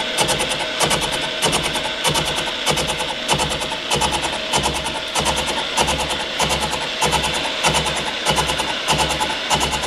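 Brown & Sharpe No. 2 universal milling machine face-milling cast iron with a 5-inch carbide-tipped shell mill at about 95 RPM under 1.5 in/min power feed. The inserts chatter steadily through the cut, with a low pulse about one and a half times a second, once per turn of the cutter.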